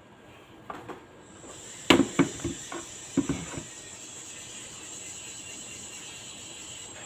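A quick run of about half a dozen sharp knocks or clacks, as of hard objects being handled, over a steady faint high hiss.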